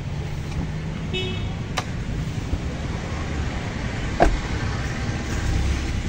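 Car running with a steady low rumble of engine and road noise, a short high toot about a second in, and a thump about four seconds in, the loudest sound.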